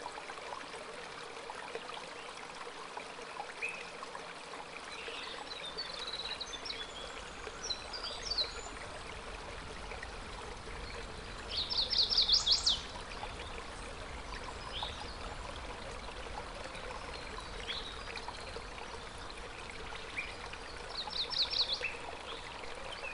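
Stream running steadily, with birds calling over it. The loudest call is a rapid trill of about eight quick notes about twelve seconds in, and a shorter trill comes near the end.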